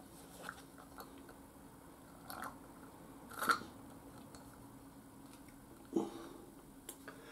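Plastic squeeze bottle with a tube sucking old brake fluid out of a BMW F800GT's open front brake reservoir: a few faint, short wet sounds as the bottle is squeezed and released, the clearest about three and a half seconds in and another at about six seconds.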